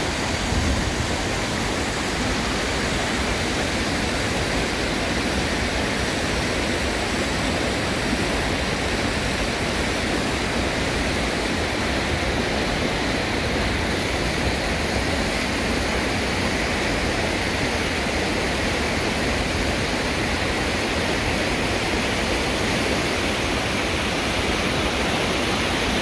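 Steady rush of flowing water, an even wash of noise with no breaks.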